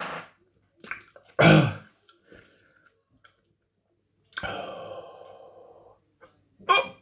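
A man hiccuping and burping from the heat of a superhot chilli pepper. There are short sharp throat sounds, the loudest about a second and a half in, and one longer drawn-out sound around five seconds.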